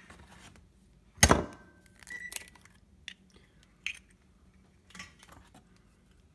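An eggshell cracking with one sharp crack about a second in, followed by a few faint clicks and taps as the shell is pulled apart and the egg drops into a ceramic bowl.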